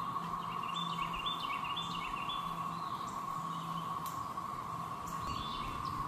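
Chorus of 13-year periodical cicadas of the Great Southern Brood: a steady, even drone at one pitch. A songbird sings short, stepped, falling phrases over it, twice.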